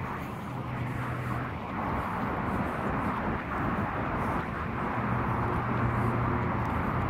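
Steady outdoor background rumble, with a low hum that fades in about five seconds in and holds.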